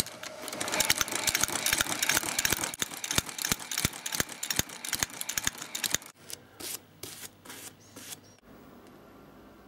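Outsole stitching machine running, a rapid mechanical clatter as it stitches a new leather sole to a shoe's welt. It stops about six seconds in, leaving a few separate clicks and then a low hush.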